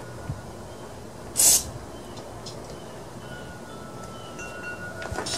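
Aerosol carburetor cleaner sprayed through its straw into a small carburetor part in a short hissing burst about one and a half seconds in, with a second burst starting at the very end, flushing out the carburetor's passages.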